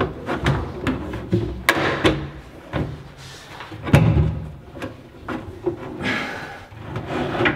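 A large kitchen drawer being pushed and pulled on metal telescopic ball-bearing slides, with repeated clacks and knocks and a heavy thump about four seconds in. The slide is catching and not seating on its ball bearings.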